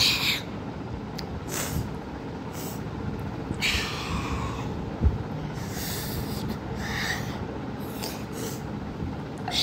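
A boy breathing hard and hissing through an open mouth against the burn of very spicy noodles: several short sharp breaths and a longer drawn-out one about four seconds in, over a steady background noise. A single short knock about five seconds in.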